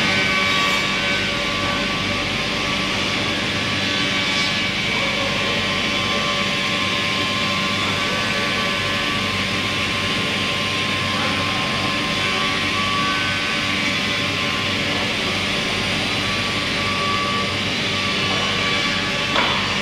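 Weinig four-sided moulder running as boards are fed through, a steady loud machine whine over the rushing of the cutterheads and dust extraction. There is a short knock near the end.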